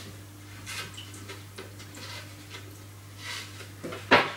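A wooden folding chessboard being handled on a tiled tabletop: faint small clicks and scrapes, then one sharp knock about four seconds in.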